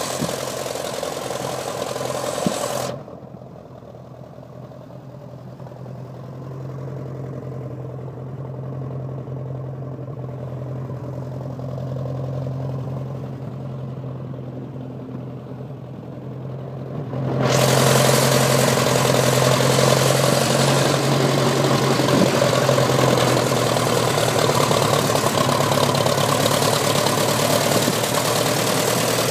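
Ferguson tractor engine running on TVO (tractor vaporising oil), with a steady low engine note. From about three seconds in the sound goes muffled and quieter for some fifteen seconds, then comes back full and loud.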